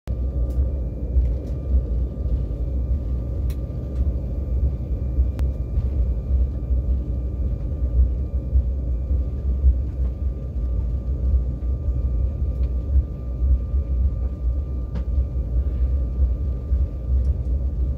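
Jet airliner cabin noise while taxiing: a steady deep rumble from the engines and rolling wheels, with a faint steady high tone above it and a few light clicks.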